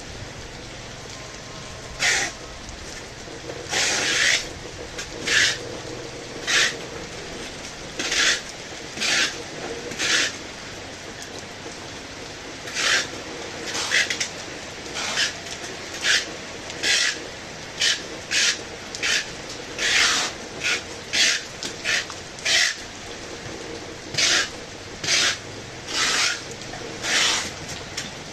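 Steady heavy rain, overlaid by a series of short, loud, scratchy bursts, roughly one a second at an uneven pace, from an unidentified source.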